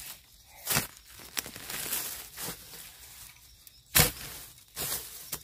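Rustling and a few sharp snaps and cracks of dry bamboo and leaf litter being handled while bamboo shoots are gathered, the loudest crack about four seconds in.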